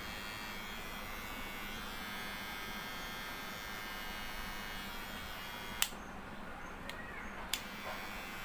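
Kemei KM-3090 electric hair clipper running with a steady buzz. Its switch clicks about two-thirds of the way in and the motor stops, then another click brings the buzz back a second and a half later.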